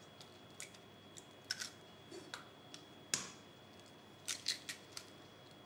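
Eggs being cracked and their shells pulled apart over a stainless steel mixing bowl: scattered small clicks and crackles, with one sharp knock about three seconds in.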